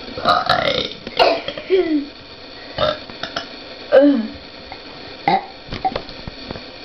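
A girl burping loudly, again and again: about six deliberate burps spread over several seconds, several of them sliding down in pitch.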